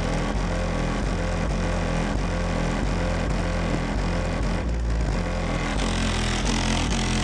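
Deep bass notes from two custom RE Audio SX 12-inch subwoofers in a ported box, heard from outside the truck, pulsing and changing pitch in steps with a buzzing rattle over them.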